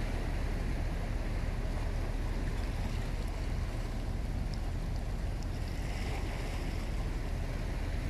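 Steady wash of harbour water with a deep, even rumble underneath.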